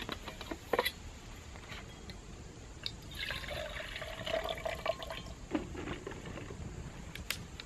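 Water poured from a bottle into a small metal cook pot on a backpacking stove: a splashing, gurgling pour from about three seconds in that lasts roughly two seconds. A few sharp clicks and knocks of handling come in the first second.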